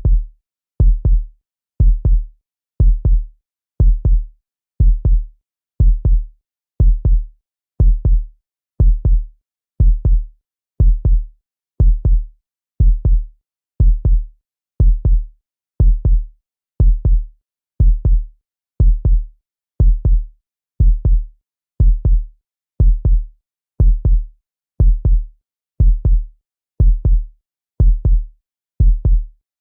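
Heartbeat sound effect: a low double thump (lub-dub) about once a second, steady and even, with nothing sounding between beats. Each beat marks one second of the countdown.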